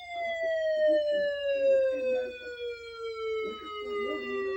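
A siren-like tone sliding slowly and steadily down in pitch, with faint speech underneath.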